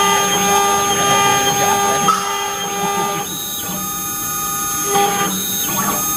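CNC router running while engraving metal: a steady, whining set of tones whose pitch shifts in blocks about three and five seconds in as the machine changes its moves.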